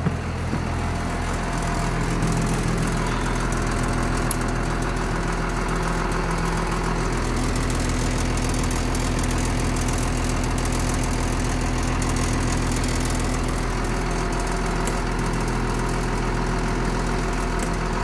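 1996 Blue Bird school bus engine idling steadily, heard from inside the cab.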